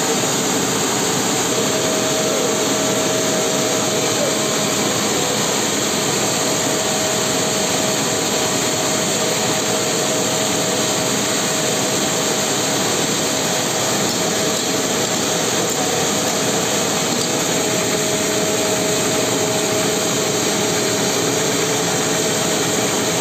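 Band sawmill machinery running steadily, a constant loud mechanical din with a steady whine that sets in about a second and a half in.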